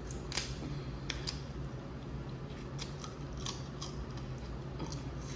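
Dungeness crab shell being broken open while eating: irregular sharp snaps and clicks, over a steady low hum.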